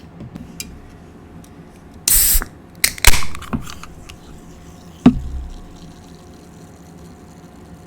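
Close-miked slurping, as through a straw from a slush cup: two short noisy slurps about two and three seconds in, then a sharp low thump about five seconds in.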